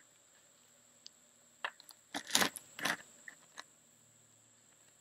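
Handling noise of the camera and a hand on a plywood floor: a few short scrapes and knocks, with a louder cluster of scrapes a little over two seconds in.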